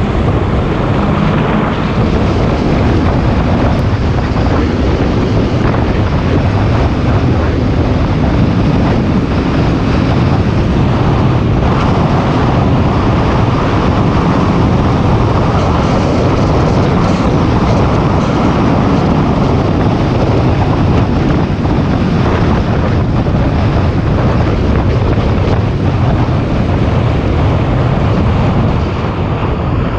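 Wind buffeting the microphone of a camera on a moving motorcycle, over the steady running of the motorcycle's engine, easing slightly near the end.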